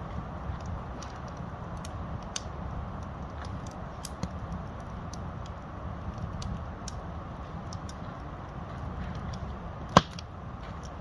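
Campfire of burning firewood crackling: irregular sharp pops and snaps over a steady low rush, with one much louder pop near the end.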